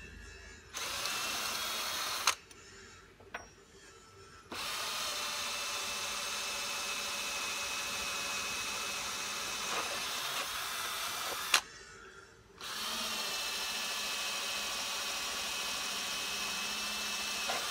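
Cordless drill boring through small metal plates held in a jig, running steadily in three stretches and stopping briefly twice, with a sharp click as it stops.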